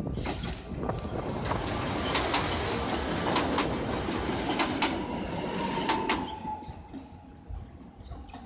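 Newag Impuls electric multiple unit passing close and slowing into a station: a rush of wheel-and-rail noise with sharp clicks as the wheels cross rail joints, loudest for about six seconds. It then fades as the train draws away, leaving a faint falling whine as it slows.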